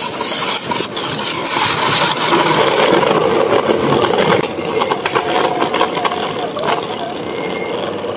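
Single belt-driven electric nickel board rolling on concrete: a steady rumble of urethane wheels on the floor, joined by a faint steady motor-and-belt whine about five seconds in.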